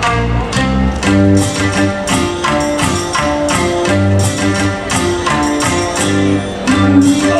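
YOSAKOI dance music track with a steady beat of bright, jingling percussion over a stepping bass line.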